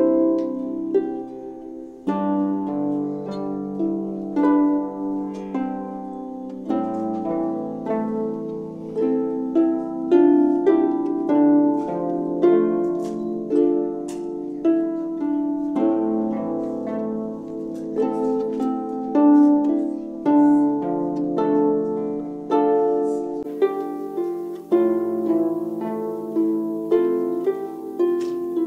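An ensemble of harps playing together: a plucked melody and chords over low bass notes that change every four to five seconds.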